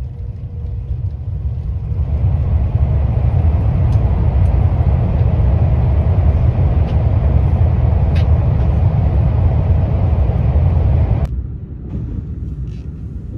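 Steady low rumble of a passenger train running, heard from inside the carriage. About eleven seconds in it drops suddenly to a quieter rumble.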